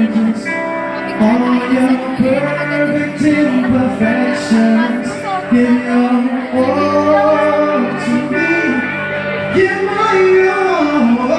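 Live band performance of a slow pop ballad, with men singing into microphones over electric guitar, drums and bass. The vocal lines bend and slide through long held notes.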